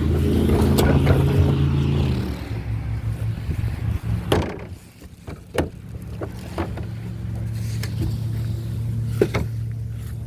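A steady low engine-like hum with several sharp knocks and clatters over it. The knocks are loudest a little past four seconds in and again near the end.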